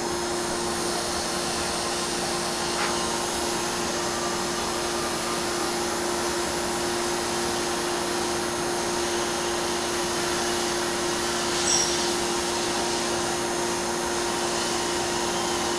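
Vacuum pump for a milling-machine vacuum chuck running steadily: a constant hum with an even hiss of air over it.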